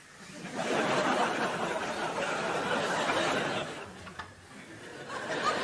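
Studio audience laughing. The laughter swells about half a second in, fades out around four seconds, then builds again near the end.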